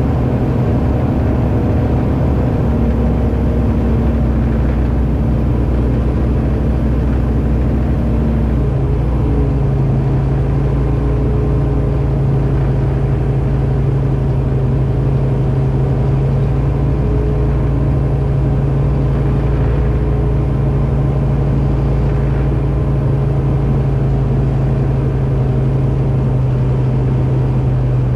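Aquila A210's Rotax 912 four-cylinder engine and propeller running steadily. The engine note changes about nine seconds in, then holds steady.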